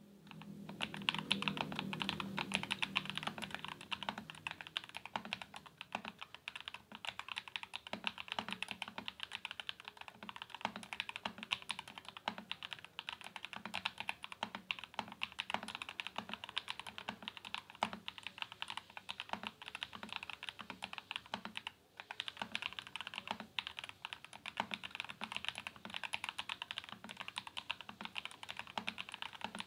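Continuous fast typing on a Royal Kludge RK68 mechanical keyboard with factory-lubed KTT Red Wine linear switches on a steel plate, in a plastic case with foam, polyfill and a three-layer tape mod, and Cherry-profile keycaps. Rapid clicking keystrokes with a brief pause about three-quarters of the way through.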